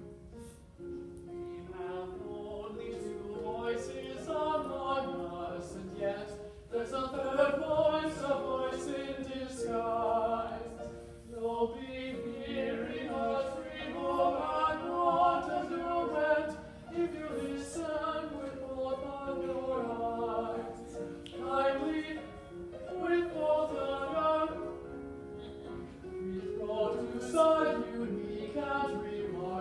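Several voices singing together in a choral, opera-style song, with overlapping held notes.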